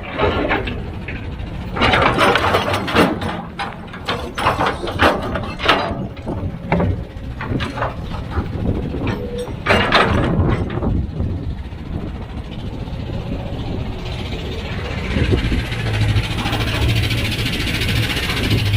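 Heavy diesel earthmoving machinery working: a low engine drone with a series of sharp clanks and knocks, then from about fifteen seconds in a steadier, louder engine drone with a hiss.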